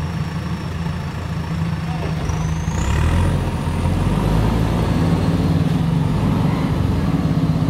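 JCB 3DX backhoe loader's diesel engine running, revving up about three seconds in as the machine backs away, with a high whine rising in pitch as it does.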